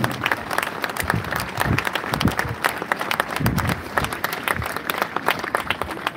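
A large crowd applauding: many hands clapping densely and irregularly, ending a speech.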